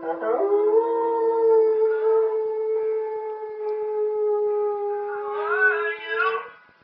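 A dog howling one long note that swoops up at the start, holds a steady pitch for about six seconds, then wavers near the end and stops.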